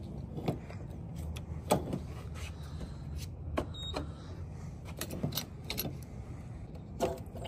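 Fuel pump nozzle dispensing E85 into a car's filler neck: a steady low hum of fuel flowing, with a few scattered clicks and knocks.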